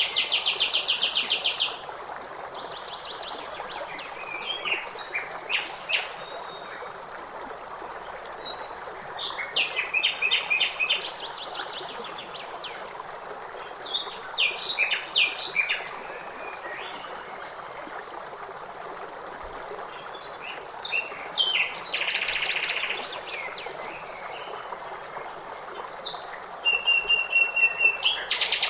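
Several birds calling and singing in bursts of rapid trills and chirps every few seconds, over a steady background hiss.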